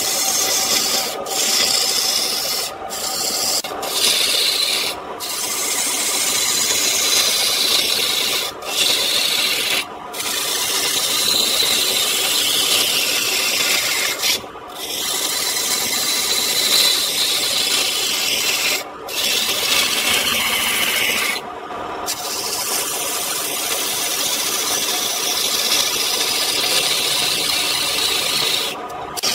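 Gouge cutting a spinning wooden blank on a wood lathe: a continuous hissing, rasping cut that breaks off for a moment about ten times as the tool lifts from the wood.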